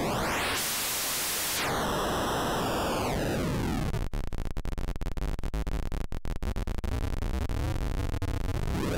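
Eurorack digital noise generator with its clock rate being swept. A rising buzzy tone turns into a white-noise hiss about half a second in. The rate then comes down into a falling pitched tone, which breaks into a gritty, crackling buzz from about four seconds in before rising again near the end.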